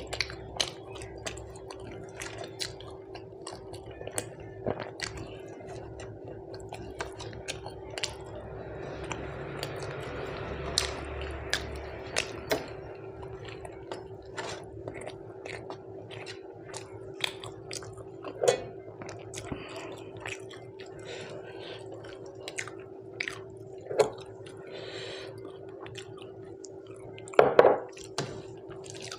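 A person eating rice and curry in a mukbang: chewing with frequent short, wet mouth clicks and smacks. A steady hum runs underneath, and a few louder smacks come near the end.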